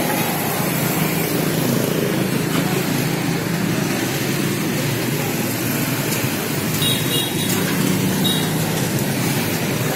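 Steady street traffic noise from passing vehicle engines, with a brief high-pitched tone about seven seconds in.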